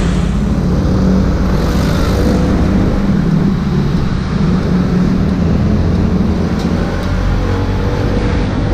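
Motorcycle running on the road, a steady low engine note with road and traffic noise around it.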